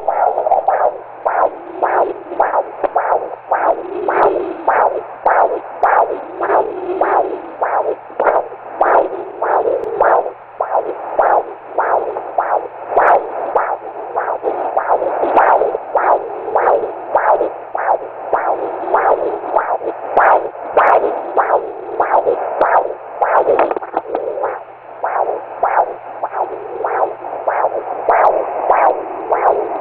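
Fetal heartbeat through a Doppler ultrasound monitor: a fast, even run of whooshing pulses, about two and a half beats a second, over a faint steady hum.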